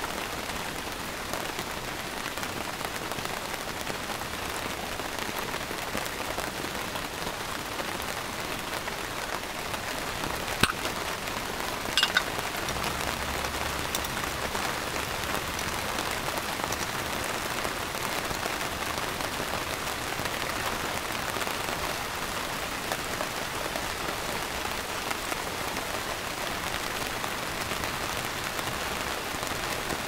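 Steady rain falling, with a few sharp clicks about ten and twelve seconds in.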